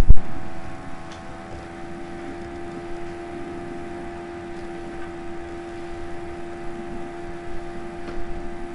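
Steady hum at one fixed pitch, with a sharp knock at the very start and a few faint clicks.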